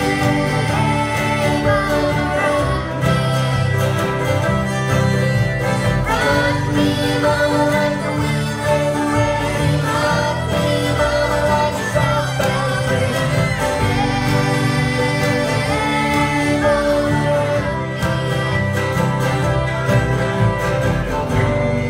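Live bluegrass band playing: strummed acoustic guitars, a bowed fiddle and an upright bass.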